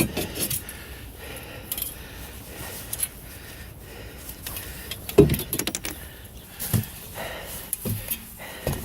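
Small pieces of scrap metal clinking and rattling as they are handled and sorted, with a heavier knock about five seconds in.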